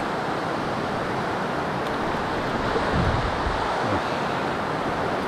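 River current rushing steadily over a stony bed. Two brief low rumbles of wind buffet the microphone about three and four seconds in.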